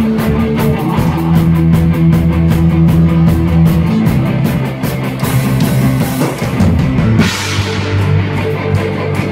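Live folk-punk band playing loud: drum kit, bowed fiddle and guitars over a steady driving beat. A cymbal crash rings out about seven seconds in, after which the drumming thins out.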